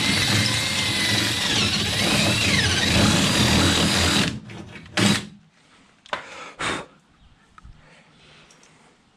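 Power drill running to ream out a bolt hole for a wheel mount, its whine shifting in pitch as the bit cuts, stopping about four seconds in. A few short knocks follow.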